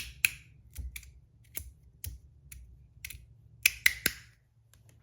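Modusworks titanium Meathammer Rapt fidget slider being snapped back and forth by hand, giving a string of sharp, irregularly spaced clicks.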